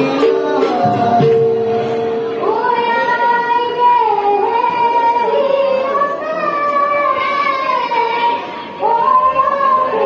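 Bhaona devotional song: a high voice sings long held notes that glide up and down. In the first couple of seconds a steady held tone sounds with light percussive strikes.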